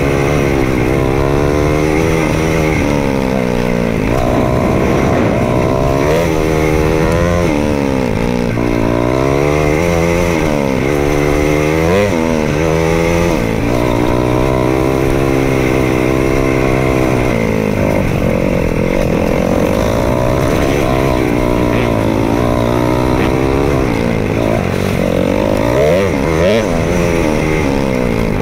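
KTM 500 EXC-F dirt bike's single-cylinder four-stroke engine under way, its pitch rising and falling again and again as the throttle is opened and closed.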